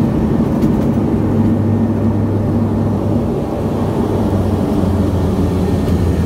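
Jetstream 32's Garrett TPE331 turboprop engines and propellers running loudly, heard from inside the cabin during the landing roll-out. The low propeller hum steps down in pitch about halfway through as the engines wind down.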